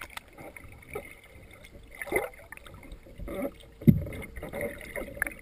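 Hot tub water heard from below the surface: a muffled churning and bubbling with a faint steady hum, broken by a few dull thumps of a child moving through the water, the loudest about four seconds in.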